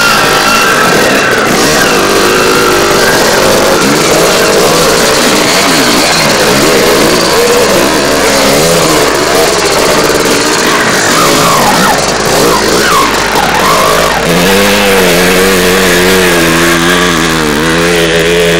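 Enduro motorcycle engines revving hard across wet, muddy ground, their pitch rising and falling with throttle and gear changes. In the last few seconds one engine holds a steady note that wavers slightly.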